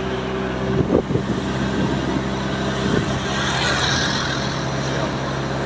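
Steady engine hum of a motor vehicle running nearby, with a rush of hiss that swells and fades about halfway through.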